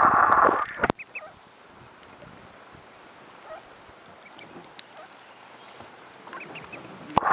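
Muffled rush of water heard underwater, cutting off about a second in as the microphone comes up into the air. Then comes quiet lake surface with a few faint mallard calls. The underwater rush returns suddenly near the end.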